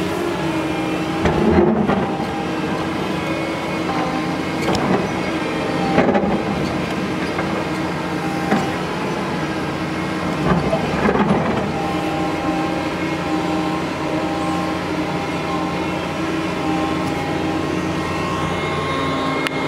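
Doosan DX225LCA excavator's diesel engine running steadily as the machine works, with a handful of short clanks and knocks. The loudest come about a second and a half in, around six seconds in, and around eleven seconds in.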